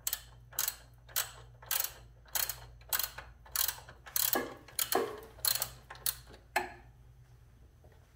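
Ratchet wrench with a 13 mm socket clicking in about a dozen quick back-and-forth strokes, roughly one and a half a second, as a motorcycle frame bolt is backed out; the strokes stop about two-thirds of the way through.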